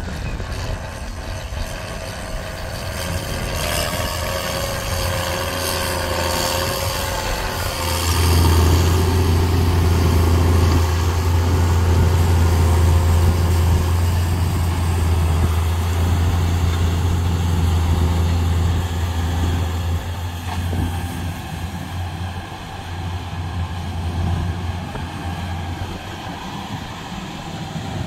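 Case IH tractor's diesel engine working under load as it pulls a seed drill across the field: a steady low drone that swells sharply about eight seconds in as it comes close, then eases off in the last few seconds.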